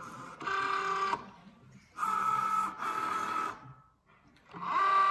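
Cricut Joy cutting machine's motors whirring in four short runs with brief pauses between them, each a steady pitched whine. The machine is drawing in and positioning a sheet of Smart Vinyl by itself and moving its blade carriage across. In the last run the whine rises in pitch as it starts.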